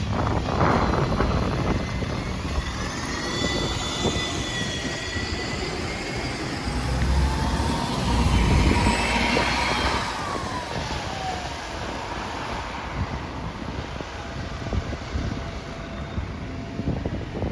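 Diesel bus engine pulling away. Its turbocharger whistle rises about two seconds in and holds, and a lower whine falls away around ten seconds in as the sound fades off.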